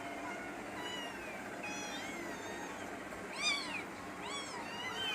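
A cat meowing over and over in short high calls that rise and fall in pitch. They are faint at first and grow louder past the middle, the loudest a little after halfway.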